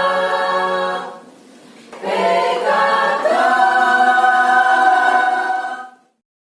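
Women's choir singing in unison. It breaks off for about a second, then comes back in and holds a long note that stops abruptly near the end.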